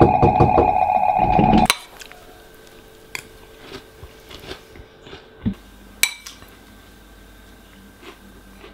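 Music with a steady beat cuts off suddenly just under two seconds in. Then a spoon clinks against a ceramic cereal bowl several times, with a couple of sharper knocks about midway.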